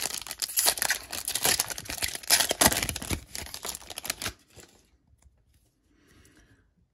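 Foil wrapper of a trading card pack being torn open and crinkled, a dense crackle that stops about four seconds in.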